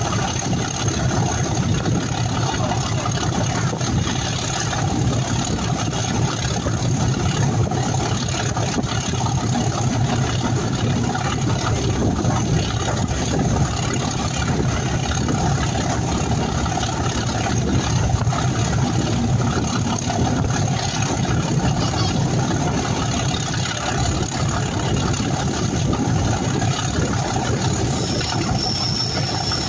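Class 37 diesel locomotive working hard under load, its engine thrash heard steadily from the train behind it as it runs along the line.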